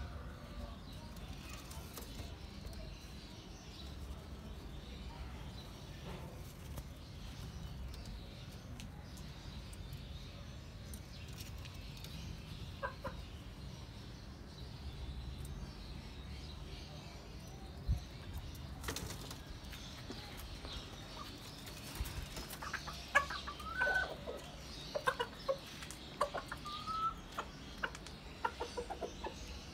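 Pigeons stirring and flapping their wings inside a wire-mesh loft, over low rumbling handling noise. From about two-thirds of the way through, a rooster gives a run of short clucks mixed with quick sharp taps.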